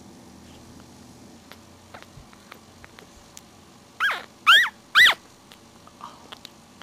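A three-week-old puppy giving three short, high-pitched squeals about half a second apart, around four seconds in, each bending up and down in pitch.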